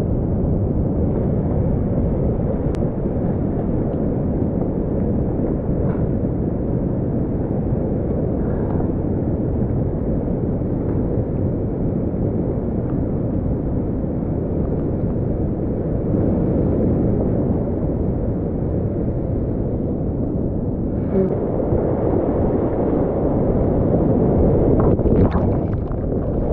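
Whitewater rapids rushing around a kayak, a steady, muffled low rush of water. Near the end, water splashes hit the camera as the boat runs a wave.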